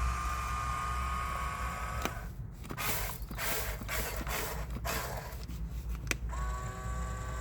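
Huina 1554 RC bulldozer's electric drive motors and gearboxes whining steadily, stopping about two seconds in for a few seconds of rough grinding, rattling noise, then whining again about six seconds in.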